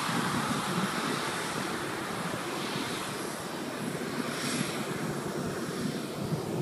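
Steady rushing engine noise of a Japan Airlines Boeing jet airliner moving along the runway.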